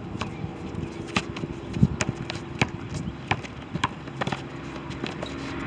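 A basketball bouncing on an asphalt court as it is dribbled, mixed with players' footsteps and sneaker scuffs as they run. These make irregular sharp thuds and slaps, several a second at times.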